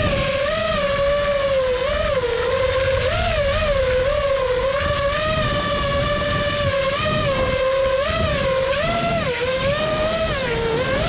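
A motor vehicle's engine running at high revs, its pitch wavering up and down as the throttle varies.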